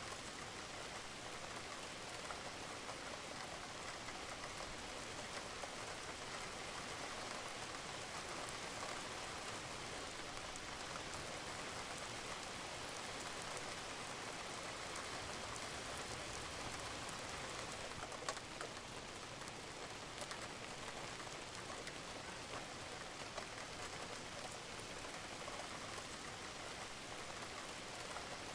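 Steady rain falling on a roof, an even patter with fine scattered drop ticks and one slightly sharper drip about eighteen seconds in.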